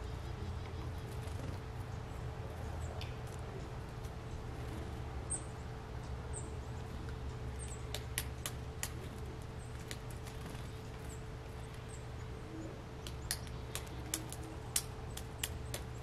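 Backyard ambience: a steady low rumble with a faint steady hum. A few faint, high, short bird chips come in the first half, and a scatter of sharp clicks in the second half.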